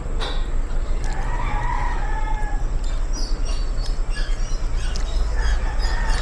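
A rooster crowing in the background, one long call about a second in and a shorter one near the end, with small birds chirping high in between, over a steady low rumble.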